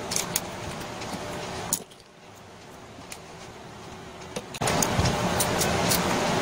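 Small clicks and light metallic rattles of hand tools and small parts being handled while an angle grinder's switch and cord wiring are put back together, over a steady background noise that drops about two seconds in and returns louder near the end.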